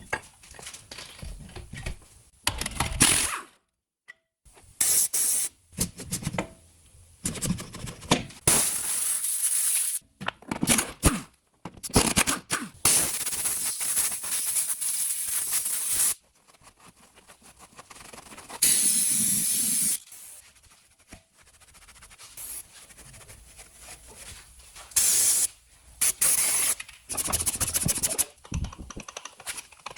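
Car repair noises in short, abruptly cut segments: hissing, scraping and clicks of tools and suspension parts being worked on during a rear shock absorber replacement. The longest hissing stretches last about three seconds, from about halfway through.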